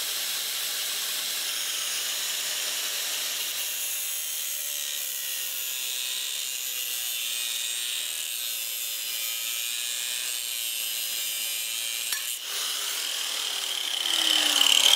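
Electric angle grinder cutting into the pressed-on steel bearing retaining collar of an axle shaft, a steady high grinding with a short break about twelve seconds in and growing louder near the end. The collar is being cut through so that it cracks and the axle bearing can come off.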